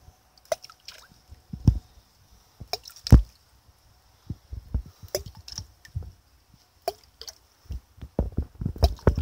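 Wels catfish feeding at the surface of shallow pond water: separate splashes, plops and drips. The sharpest splash comes about three seconds in, and a quicker run of them comes near the end.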